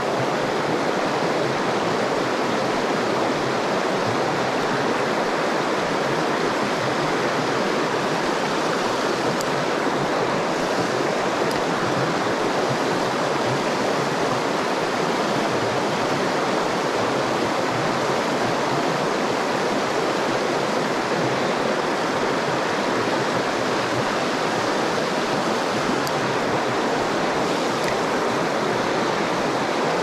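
Mountain stream rushing, a loud, steady, even sound of flowing water.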